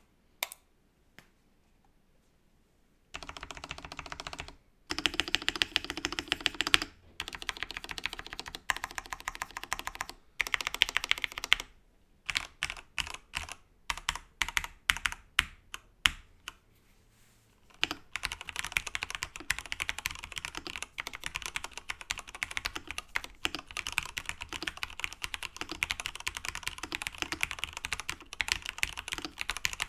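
Typing on an mStone Groove T SF mechanical keyboard: factory brush-lubed Cherry MX Red switches and lubed stabilizers in a plastic case with two sound-absorbing foam layers. After about three seconds of quiet come bursts of keystrokes with short pauses, turning into steady fast typing a little past halfway.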